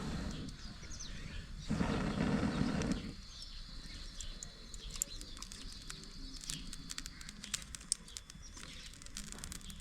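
Outdoor ambience with birds chirping and scattered small clicks. A louder rushing noise lasts about a second, starting near the two-second mark.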